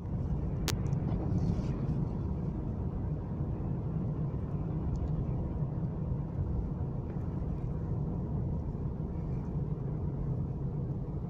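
A 2019 Honda Civic driving through snow, heard as a steady low rumble of road and engine noise, with one sharp click near the start.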